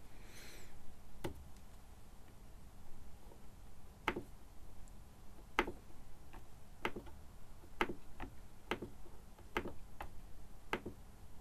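Controls of a Soundcraft Si IMPACT digital mixing console clicking under the fingers as they are pressed and turned. There are about ten sharp clicks, irregularly spaced, roughly one a second.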